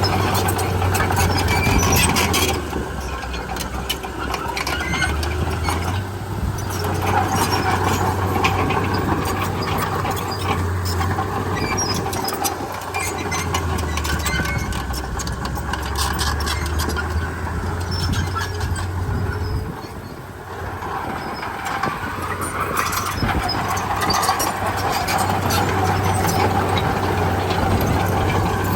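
Komatsu D31P crawler bulldozer's diesel engine running and working, its pitch and load rising and falling, with frequent short metallic clicks and clanks over it. The engine eases off briefly about two-thirds of the way through.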